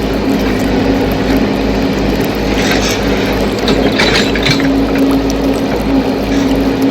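Hobby-grade RC excavator running, the steady hum of its motor-driven hydraulic pump, with crackling scrapes from about two and a half to four and a half seconds in.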